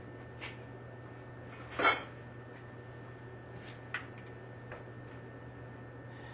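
Metal clinks from handling copper pipe and plumbing tools: one sharp clink about two seconds in and a few light ticks later, over a steady low hum.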